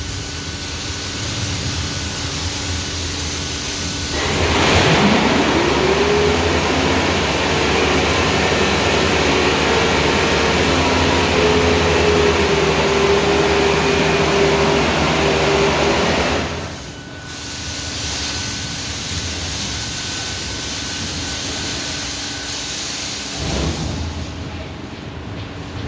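Touchless automatic car wash machine running. About four seconds in, a pump motor spins up with a quickly rising whine and the water jets spray at full pressure for about twelve seconds. Then it drops back to a quieter, steady hiss.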